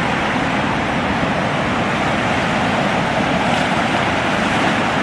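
Steady rush of a river in flood, its fast, turbulent current churning into standing waves.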